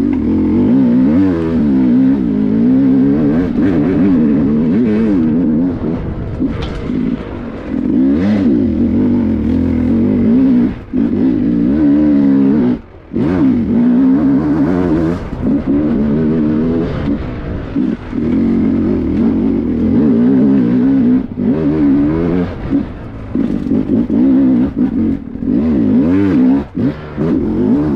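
Dirt bike engine under load on a steep, rocky uphill climb, revving up and down as the throttle is worked on and off. The revs drop away briefly a couple of times, around the middle.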